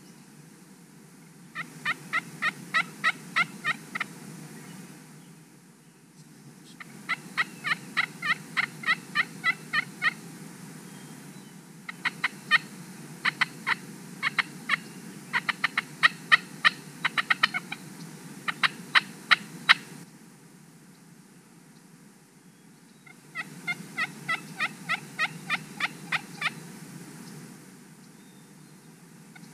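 Turkey calls in runs of evenly spaced sharp notes, about four a second, each run a few seconds long. There are four runs, and the middle one is longer and busier, with notes overlapping as if more than one turkey is calling.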